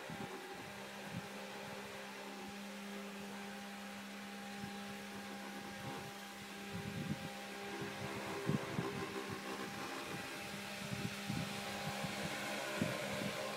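Robomow RS630 robotic lawn mower running on grass: a steady electric hum from its motors. Irregular low thumps join in from about halfway through.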